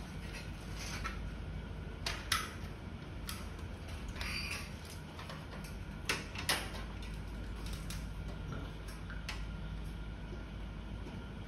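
Scattered light metallic clicks, knocks and a short scrape from hands working parts and fittings inside an opened gas stove's sheet-metal chassis, the sharpest a little after two seconds in and around six seconds in, over a steady low hum.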